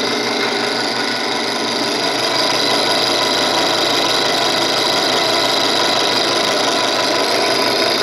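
Gamma 350-watt benchtop drill press motor running steadily: an even electric motor hum and whine.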